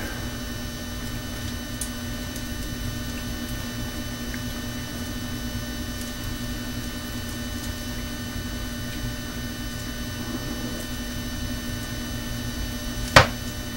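Steady electrical hum with a low rumble underneath, and one sharp click near the end.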